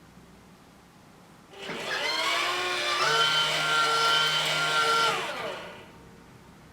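Small coffee roaster's electric motor switched on, whining up to speed, running steadily for about two seconds, then winding down with a falling pitch once it is switched off.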